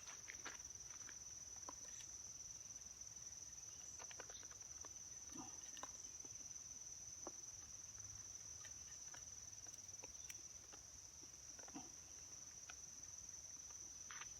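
Insects singing in a steady, high-pitched chorus, with scattered faint clicks and light footsteps.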